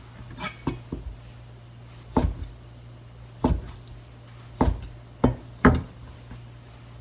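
Kitchen knife cutting soaked koya (freeze-dried) tofu into quarters, the blade knocking on the cutting board in about eight separate strokes at an uneven pace.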